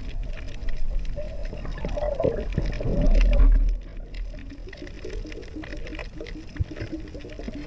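Underwater water noise heard through a camera housing during a dive: gurgling, swishing water over a low rumble that swells loudest a little after three seconds in, with many faint clicks throughout.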